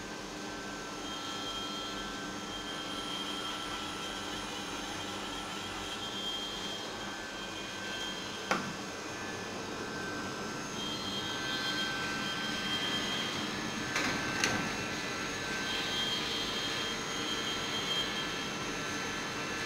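CNC milling machine running with a steady whir, a high whine that comes and goes, a sharp click about eight seconds in and a short burst of noise around two-thirds of the way through.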